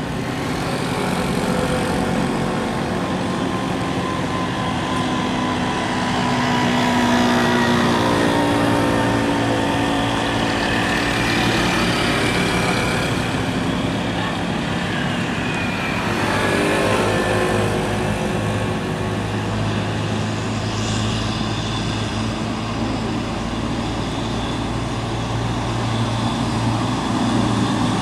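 Heavy diesel trucks grinding up a steep, winding hill, their engines straining under load, with the engine pitch rising and falling as they pull up the grade.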